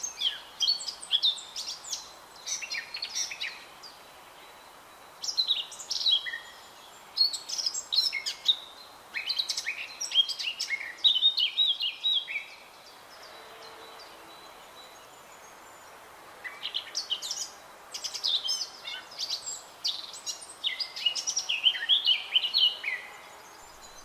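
Male Eurasian blackcap singing: several quick warbling phrases, chattering at the start and ending in clear, fluting notes, with a longer pause about halfway through.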